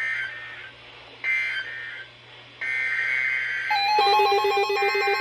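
Emergency Alert System SAME data bursts: short, harsh two-tone digital squawks about a second apart, marking the end-of-message code after the warning, then a longer header burst starting the next alert. About three and a half seconds in, a loud electronic alert tone begins, its pitch stepping up and down.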